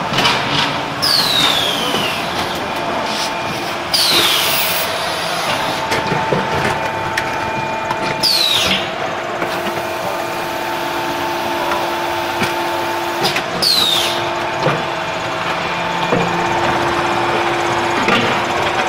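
Concrete pan mixers and tile-press machinery running steadily, mixing damp terrazzo concrete mix with a constant machine hum. A short high squeal that falls in pitch comes four times, a few seconds apart.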